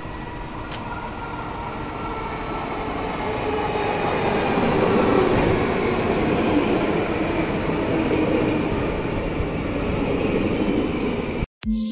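Stockholm commuter train (pendeltåg) running on the rails: a steady rumble that builds over the first few seconds and then holds, with faint whining tones above it. The sound cuts off abruptly just before the end.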